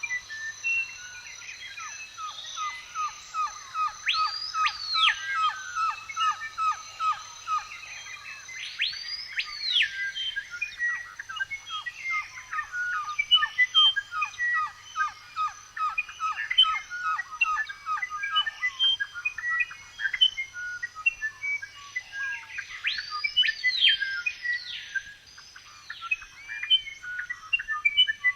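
Forest birdsong from several birds chirping together. Loud whistled calls swoop up and back down every few seconds, while a fast, even trill of repeated notes runs through the first two-thirds and then stops. A faint steady high hiss lies underneath.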